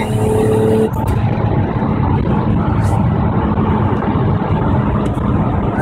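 Toyota Soarer with a single-turbo swap driving on the road, heard inside the cabin: steady engine drone with road noise. A steady engine note in the first second breaks off abruptly, leaving the drone and road noise.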